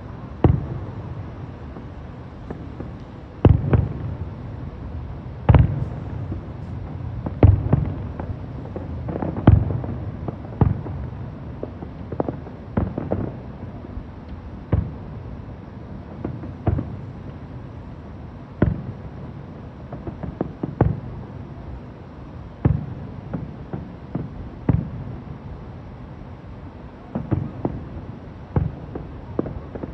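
Fireworks going off: a long series of sharp bangs, one every second or two at irregular spacing, each trailing off in a low rumble.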